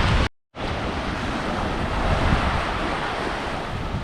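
Surf washing onto the beach, with wind noise on the microphone. A brief gap of silence just after the start breaks it.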